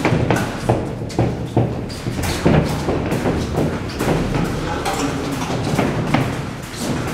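Boxing gloves thudding on gloves and padded headgear during sparring, an irregular series of sharp thuds about one or two a second, mixed with feet moving on the ring canvas.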